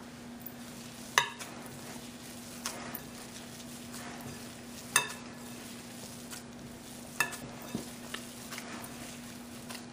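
Gloved hand mashing and mixing spiced boiled potatoes in a glass bowl: soft squishing and stirring, with about six sharp knocks and clinks of the glass bowl, some ringing briefly.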